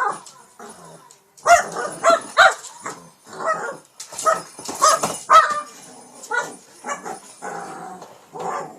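A Shih Tzu making a rapid string of short barks, yips and whines, about a dozen calls with a brief pause about a second in, as it attacks a toy.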